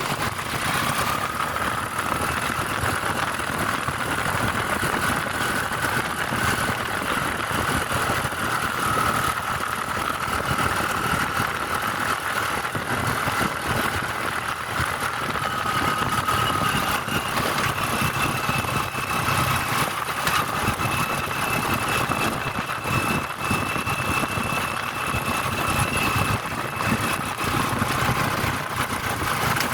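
A car driving at a steady pace: engine and road noise, with a faint whine that wavers slightly in pitch and a higher one joining about halfway through.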